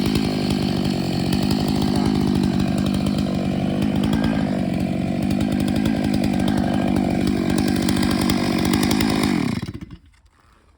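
Chainsaw on a chainsaw mill running steadily while sawing a slab off an elm log, then shutting off abruptly about a second before the end.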